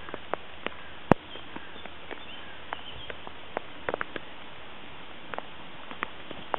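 Irregular sharp clicks and ticks over a steady hiss, the loudest a single sharp click about a second in, with a few faint bird chirps.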